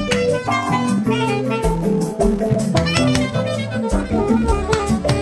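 Live band music with a saxophone playing a melody over a bass line and a steady percussion beat.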